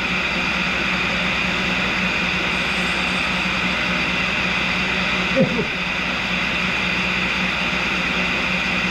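Tool and cutter grinder running its diamond wheel together with a dust-collection vacuum: a steady hum under an even hiss.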